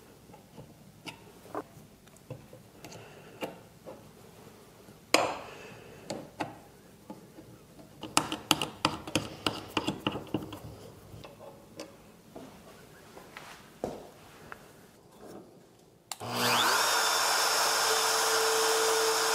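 Light clicks and knocks of metal jig parts being adjusted and set against a board, then, about three-quarters of the way through, a trim router in a mortising jig switches on, spins up with a brief rising whine and runs steadily at full speed.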